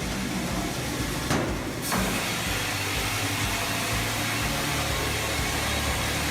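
Wood-processing machinery running steadily, with a low engine hum under a broad hiss. A little under two seconds in there is a brief knock, and the running sound becomes fuller and hissier.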